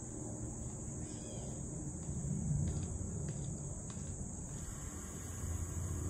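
A steady, high-pitched chorus of insects shrilling without a break. Under it there is a low, uneven rumble that is loudest about two and a half seconds in.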